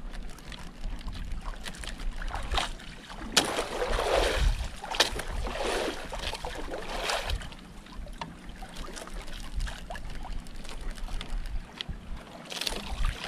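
Water slapping and washing against the hull of a small outrigger boat, in several surges through the middle, over a low steady rumble.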